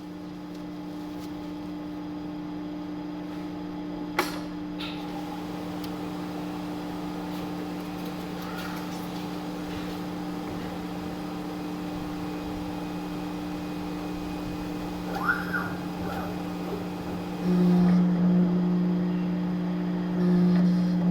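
Electric paper-cutting guillotine's motor humming steadily, with a sharp click about four seconds in. The hum grows louder twice near the end.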